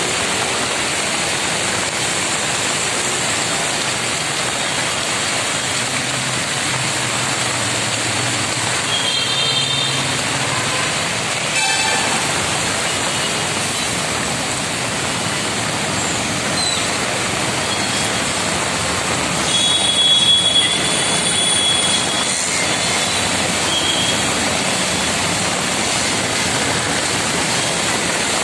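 Heavy rain pouring steadily, with traffic driving through a flooded road. Vehicle horns sound briefly a few times, loudest about two-thirds of the way through.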